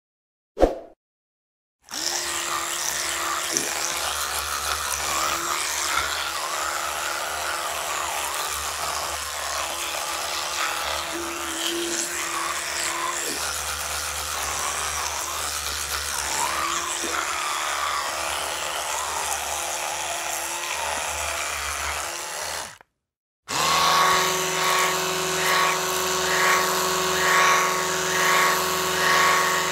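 Electric toothbrush motor buzzing steadily after a short click, with a hissing brushing sound over it. It cuts off near the end, then starts again louder and pulses regularly, about one and a half pulses a second.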